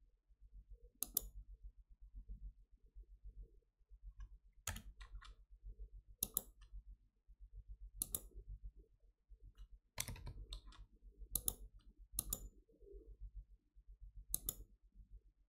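Computer mouse clicks, about eight single and paired clicks spaced irregularly a second or two apart, over a faint low hum.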